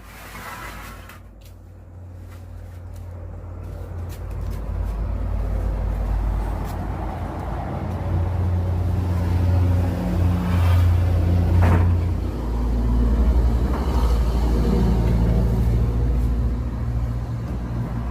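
A motor vehicle's engine running with a steady low rumble, growing louder over the first few seconds, with a single sharp click about twelve seconds in.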